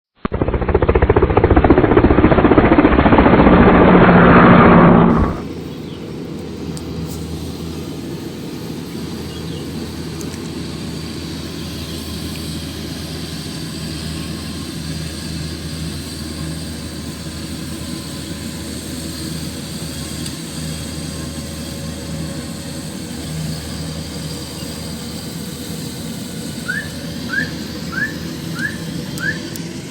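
A rice combine harvester's engine runs steadily with a low, even drone. It opens with about five seconds of much louder, muffled noise. Near the end come five short rising chirps in quick succession.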